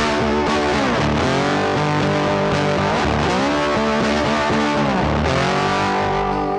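Music led by a distorted electric guitar, its held notes bending in pitch every couple of seconds.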